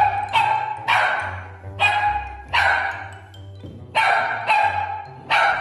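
Small dog barking repeatedly, about eight short barks in uneven runs, over background music with a steady bass line.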